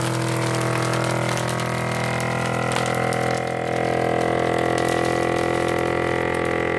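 Countertop vacuum sealer's electric pump running with a steady hum, drawing the air out of the bag so the plastic pulls tight around the food.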